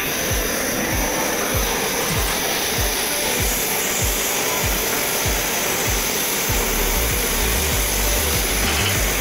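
Gas welding torch burning with a steady, loud hiss as its blue flame heats a radiator's metal upper tank.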